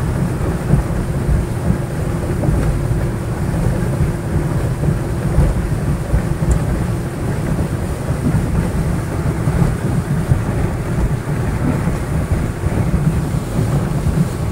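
Wind buffeting the microphone on a motorboat under way: a heavy, constantly fluctuating rumble over the steady drone of the boat's engine.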